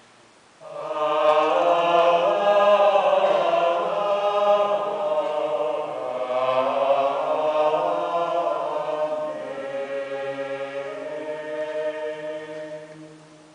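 A mixed a cappella vocal ensemble of women's and men's voices singing Gregorian chant. The voices enter together about half a second in over a steady held low note, and the sound fades away near the end.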